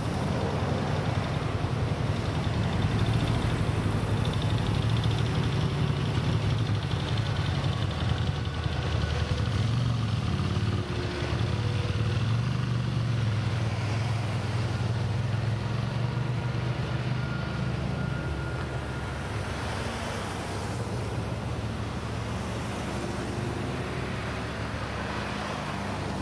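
Amtrak Pacific Surfliner passenger train passing behind a diesel locomotive: a steady low engine drone and wheel rumble, easing a little after about eleven seconds.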